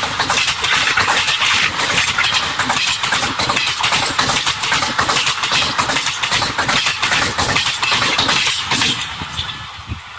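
Passenger coaches of an express train rushing past at speed, steel wheels running on the rails with a rapid, dense clatter. About nine seconds in the sound drops off sharply as the last coach passes and the train draws away.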